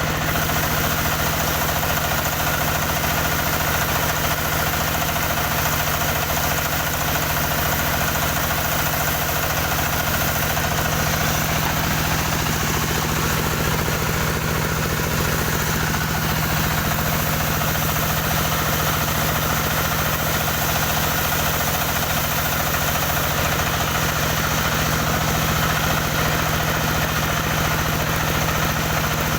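Engine of a wood-sawing machine running steadily at one constant pitch, with no change in speed.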